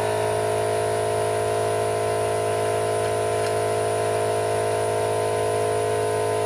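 A motor running with a steady, even hum, cutting off abruptly near the end.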